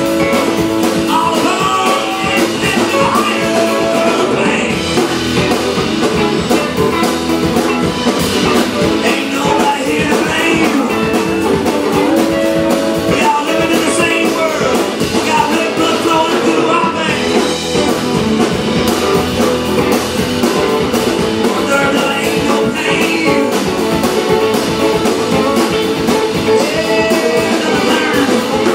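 Background music: a guitar-driven rock-and-roll song that plays steadily.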